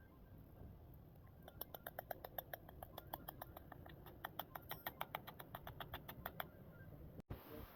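A quick, even run of small, faint clicks, about seven a second, starting about a second and a half in and stopping about five seconds later.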